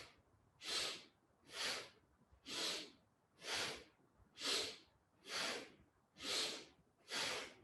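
Rhythmic, forceful breathing through the nose, about one breath a second, each inhale and exhale a short sharp rush of air. It is paced to the spinal flex yoga movement: inhale as the back arches, exhale as it rounds.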